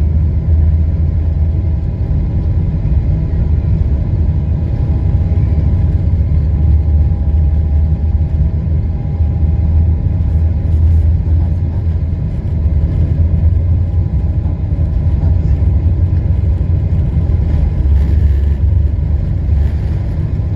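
Boeing 777's GE90 turbofan engines at high thrust heard inside the cabin: a steady, loud low rumble with faint steady whining tones above it.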